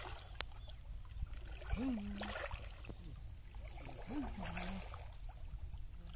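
Shallow muddy river water sloshing and splashing as men wade and grope through it by hand. A man's voice makes two short sounds, about two seconds in and again past four seconds.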